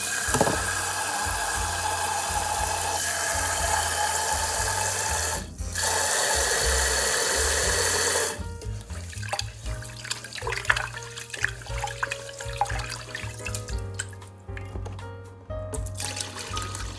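Tap water running hard into a rice cooker's inner pot of rice to rinse it, pausing briefly about five seconds in and stopping at about eight seconds. Softer, uneven splashing follows as the cloudy rinse water is poured off into a stainless-steel sink. Background music with a steady low beat plays throughout.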